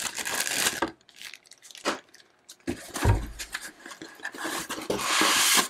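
Unpacking noises: a plastic zip bag crinkling as it is handled, a dull thump about three seconds in, then about a second of steady scraping as the packing foam rubs against the cardboard box near the end.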